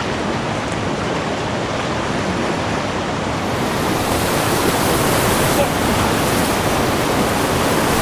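Whitewater rushing over a river block ramp, a loud steady hiss of water that grows brighter and a little louder about three and a half seconds in as the boat draws into the rapid.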